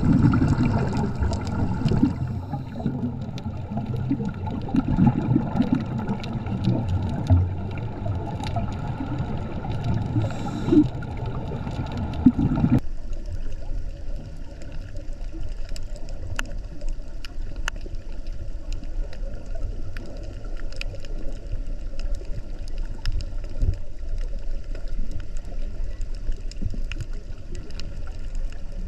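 Underwater ambient sound heard through a diver's camera: a low, rumbling water noise that drops suddenly about thirteen seconds in to a quieter hiss with scattered sharp clicks.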